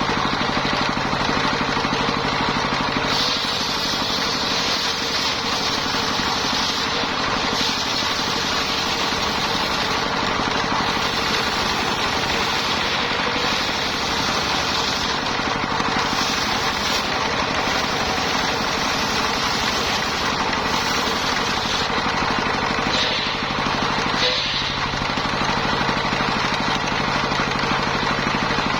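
Engine-driven circular sawmill running steadily. From about three seconds in to past twenty seconds the blade cuts through lamtoro wood in several stretches, adding a loud hissing rasp over the engine. Near the end the saw runs free again.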